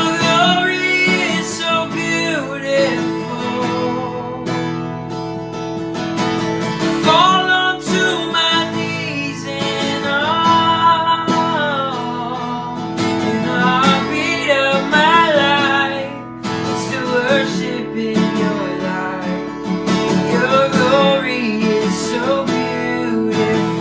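Worship music: a strummed acoustic guitar with a voice singing the melody over it.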